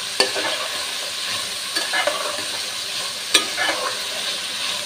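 A metal spatula stirring and tossing cauliflower and potato pieces in a metal pan over a steady sizzle of frying oil, with a few sharp scrapes and knocks of the spatula against the pan.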